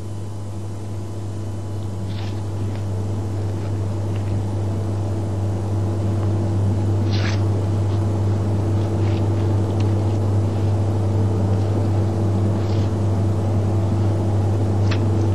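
A steady low hum, growing slowly louder, with a few faint short clicks scattered through it.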